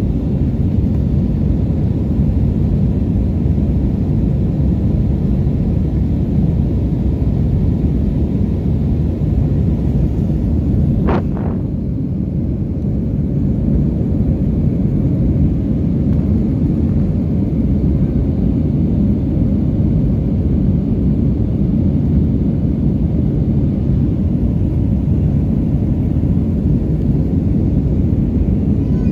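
Steady roar of an Airbus A321's jet engines and rushing air, heard from inside the passenger cabin during the climb after takeoff. A brief high tone sounds once about eleven seconds in.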